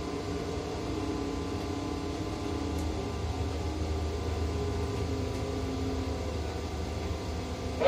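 Potain MC 310 tower crane's drive machinery running, heard from inside the operator's cab: a steady hum of several tones over a low rumble, with the tones shifting slightly in pitch a few times as the crane moves.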